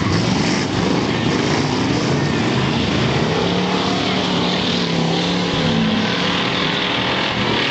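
Engines of several rear-wheel-drive bomber-class stock cars racing on a dirt oval, running loudly and overlapping, their notes rising and falling as they pass.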